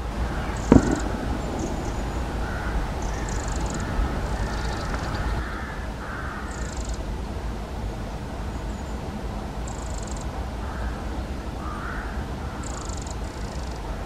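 Eurasian wren giving short, high calls every second or few, with lower calls of other birds in the background. A sharp knock sounds about a second in, over a steady low rumble.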